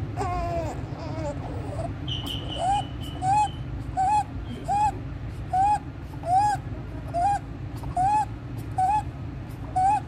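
A newborn's inspiratory stridor: a short, high-pitched crowing note on each breath in, repeating about every three-quarters of a second, with a brief whimper at the start. It is the sign of a narrowed upper airway.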